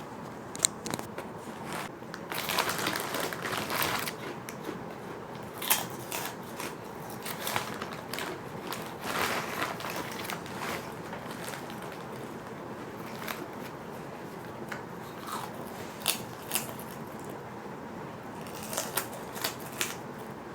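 A person biting and chewing crisp fish crackers close to the microphone: irregular crunching and sharp cracks, with a few louder bites.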